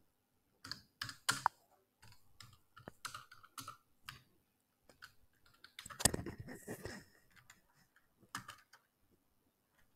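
Computer keyboard being typed on in slow, scattered keystrokes, with a louder burst of noise lasting about a second around six seconds in.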